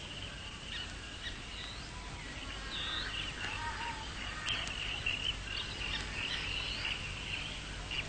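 Forest ambience: birds chirping and calling in many short, high, gliding notes over a steady high buzz, with a low hum underneath.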